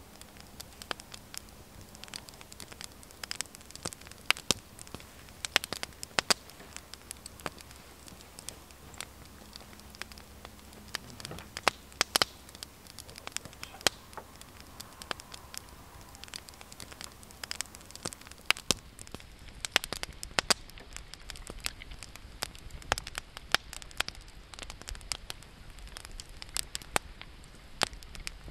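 Wood campfire burning, logs crackling with irregular sharp pops and snaps.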